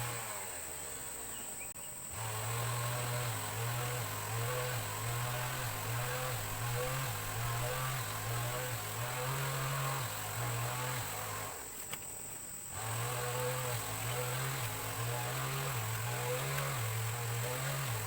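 A low droning hum that wavers up and down in pitch, dropping out twice, over a steady thin high whine like insects.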